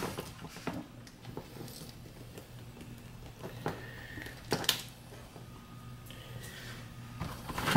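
Light handling noises as a small plastic fountain pump, its power cord and plastic tubing are moved about on a plastic bucket lid: a few soft taps and rustles, the clearest about four and a half seconds in, over a faint steady low hum.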